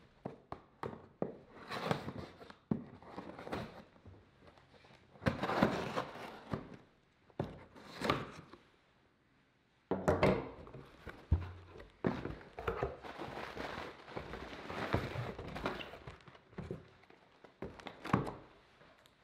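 A cardboard shipping box being opened by hand: packing tape is picked at and slit, and cardboard flaps rustle and scrape. The box is handled with irregular clicks and knocks and a low thump, and an inner cardboard box is lifted out.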